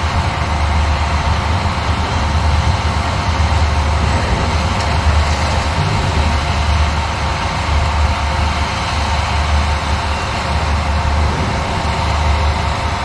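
Diesel engine of a high-reach demolition excavator running steadily as it works its crusher jaw into the rubble: a low, even drone.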